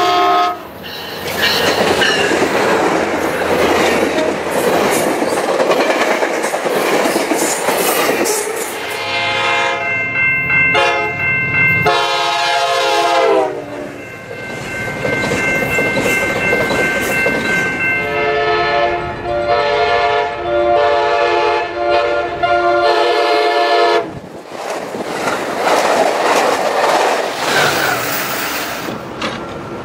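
Diesel passenger trains rushing past at speed, the rumble and clatter of wheels on rails. In the middle a multi-note train horn sounds: a long chord whose pitch drops as the train passes, another long chord, then a string of about six short blasts.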